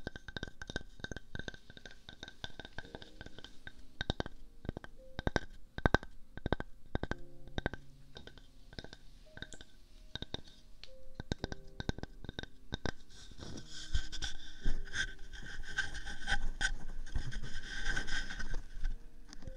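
Soft close-up taps and clicks at the ears of a binaural microphone. From about two-thirds of the way in these give way to steady scratching and rubbing on a round slice of wood held against the microphone's ear.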